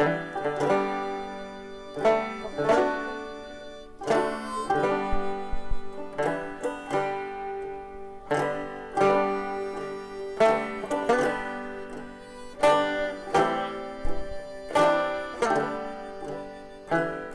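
Background music: a plucked banjo picking a tune in a country or bluegrass style, each note struck sharply and dying away.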